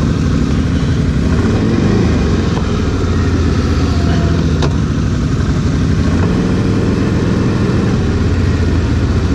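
ATV engine running at a steady speed, with one sharp click a little past halfway through.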